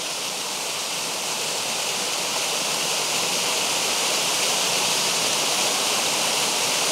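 Steady rush of water falling and flowing over rocks in a creek at a waterfall, with no other event standing out. It grows slightly louder over the first few seconds.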